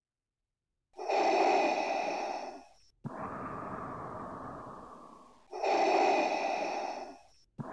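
Darth Vader's respirator breathing sound effect, starting about a second in. Two loud, hissing breaths in with a whistling edge are each followed by a softer breath out that tails off; the second breath out begins at the very end.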